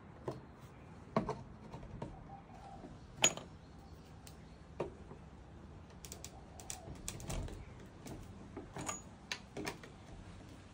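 Scattered clicks and knocks of 3/4-inch PVC pipe fittings being handled and pushed together, white tees and 45-degree elbows fitted onto the pipe. One sharper knock comes about three seconds in, with a run of lighter clicks in the second half.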